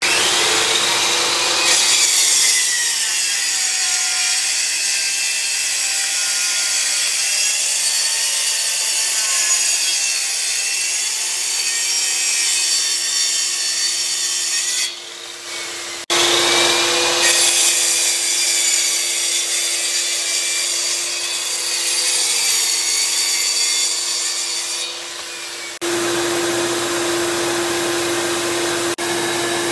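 Plunge track saw ripping a board edge straight along a guide rail for edge-jointing, in two long cuts of about 13 and 10 seconds. A dust extractor hums steadily throughout and runs on alone for the last few seconds.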